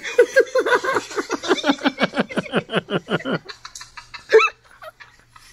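A man laughing hard in a rapid, rhythmic 'ha-ha-ha' of about seven pulses a second, each falling in pitch, breaking off at about three and a half seconds. A sharp gasping breath follows about a second later.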